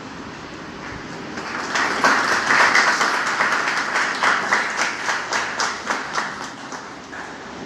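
Audience applauding: the clapping swells about two seconds in, then thins into scattered claps that die away near the end.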